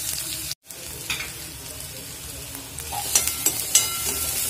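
Chopped onions sizzling in hot oil in a kadai, with a brief break just after the start. From about three seconds in, a metal spoon scrapes and clicks against the pan as the onions are stirred, louder than the sizzle.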